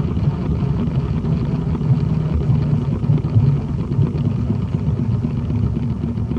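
Steady low rumble of air buffeting the onboard microphone from the T-Rex 500 RC helicopter's spinning main rotor, with the helicopter sitting landed. It eases slightly near the end.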